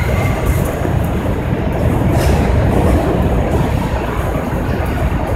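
R46 subway train pulling into the terminal station: a steady rumble of steel wheels on the rails, with a few brief clicks about two seconds in.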